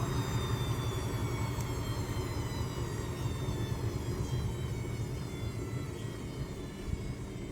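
Steady low rumble of background noise, with no distinct knocks or other events.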